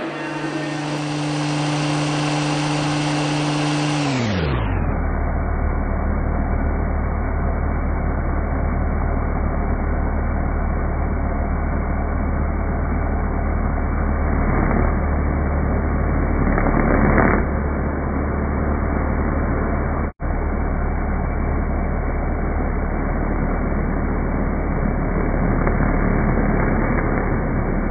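1968 Wadkin overhead router cutting wood, its cutter throwing chips. Its steady hum slides down in pitch about four seconds in, as the sound is slowed to a deep, muffled drone, and cuts out for an instant about twenty seconds in.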